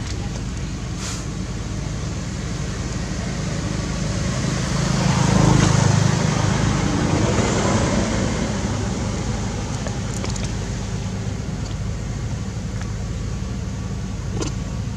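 Steady traffic noise with a low engine hum, swelling as a vehicle passes about five seconds in, then fading back.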